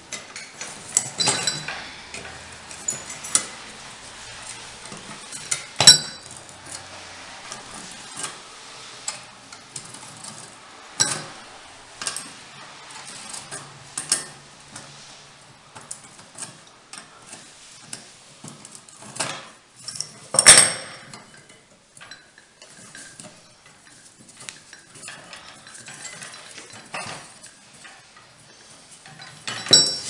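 Metal parts of a Victorian mechanical doorbell clinking, tapping and scraping as they are worked with a screwdriver: irregular small knocks, with sharper clanks about six seconds in and about twenty seconds in.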